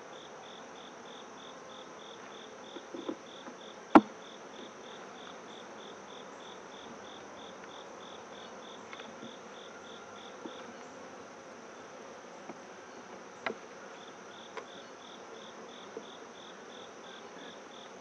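Honeybees buzzing over an open hive, with a cricket chirping steadily at about four chirps a second that pauses for a few seconds in the middle. One sharp knock about four seconds in, and a few lighter clicks later, as a metal hive tool pries the outermost wooden frame loose.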